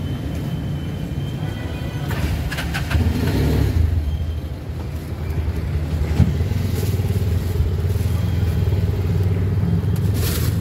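Auto-rickshaw engine running steadily under way, heard from inside the passenger cabin, a little louder from about three seconds in, with a few short clicks and knocks.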